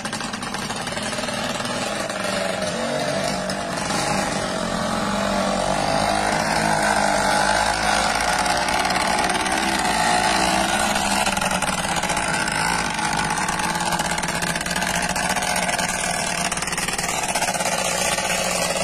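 Small motorcycle engines running steadily at low speed while the two bikes carry a heavy log slung between them.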